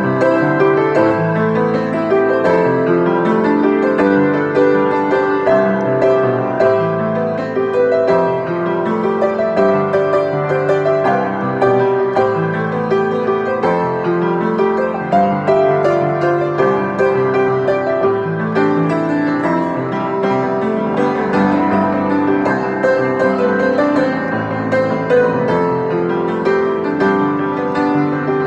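Upright piano played with both hands: a continuous stream of notes, low notes under a higher melody.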